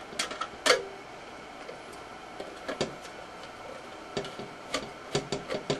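Phillips screwdriver driving a screw into a rock tumbler's sheet-metal bottom plate: irregular light metallic clicks and ticks, coming closer together near the end.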